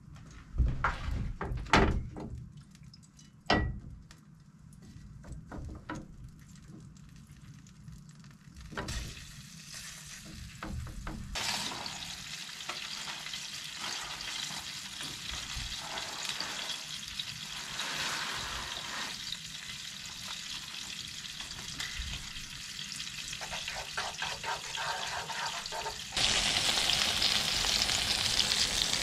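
Brook trout frying in oil in a pan: a steady sizzle that starts about a third of the way in and gets louder near the end. A few sharp knocks come at first.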